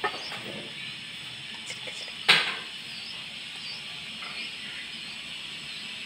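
Faint, high peeps of nestling birds begging, over a steady hiss, with one sharp knock a little over two seconds in.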